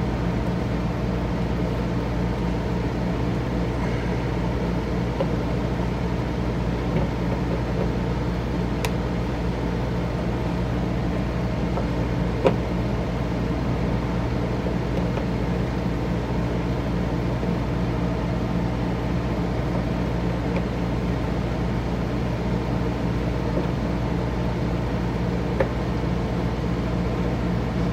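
Steady low mechanical hum, unchanging throughout, with a few faint isolated clicks.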